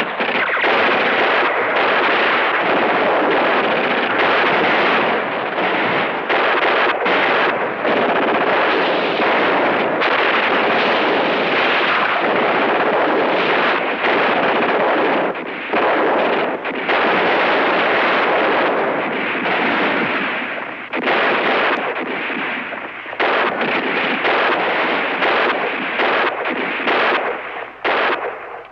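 Heavy battle gunfire from a war-film soundtrack: rifles and machine guns firing almost without a break, thinning briefly a few times and dropping away near the end.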